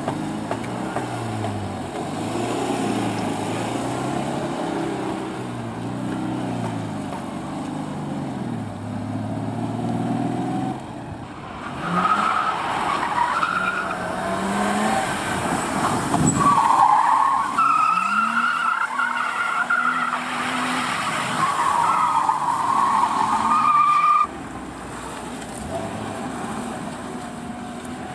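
A Citroën 2CV's air-cooled two-cylinder engine revs up and down as the car weaves through a cone slalom on asphalt. After a cut, about midway, tyres squeal repeatedly over the engine as a car is thrown through tight turns. Near the end the sound drops abruptly to a quieter running engine.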